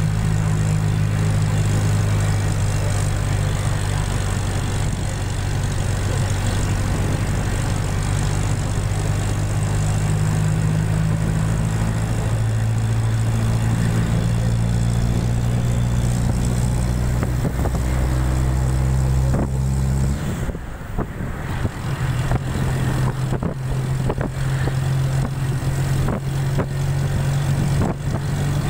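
Bus engine running with steady road noise, heard from inside the moving bus. About twenty seconds in the low engine note drops away for a moment and then comes back, with scattered knocks and rattles after it.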